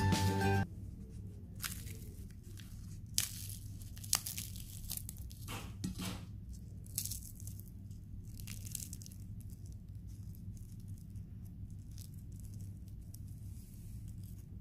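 Crisp rava dosa being torn apart by hand, crackling in irregular sharp snaps, the loudest about 3 and 4 seconds in, over a low steady hum. The crackling is the sign of a crisp, well-roasted dosa.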